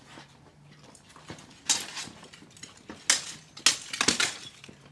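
Steel swords clashing and striking steel plate armour in a live-steel bout: several sharp metallic clangs with a short ring, one about a second and a half in and three in quick succession between three and four seconds in.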